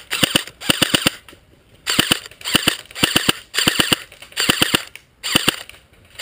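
Electric airsoft rifle, a G&G CM16 Raider DST, firing about eight short bursts of three to four shots each, rattling in quick succession as covering fire.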